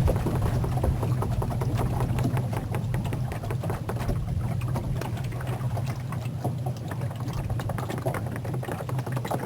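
Small boat's motor running steadily, with water splashing and sloshing against the hull.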